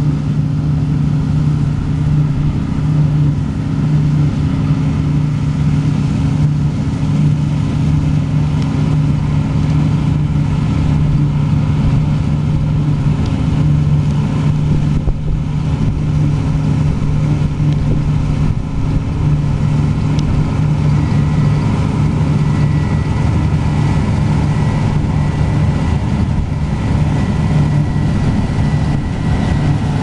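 New Holland CX8070 combine harvester running steadily while cutting winter barley: a constant deep engine drone from the working machine. A thin high whine joins in about two-thirds of the way through.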